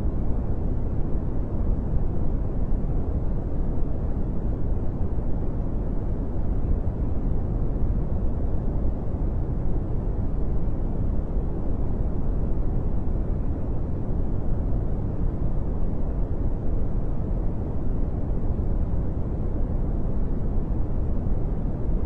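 Steady brown noise: an even, deep hiss, strongest in the bass and thinning out toward the highs, with no events or changes.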